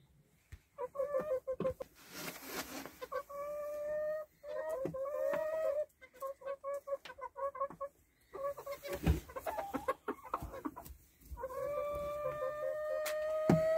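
Bantam Cochin hen clucking in short runs, with several long, drawn-out calls, the longest near the end lasting about two seconds. A short rustle about two seconds in.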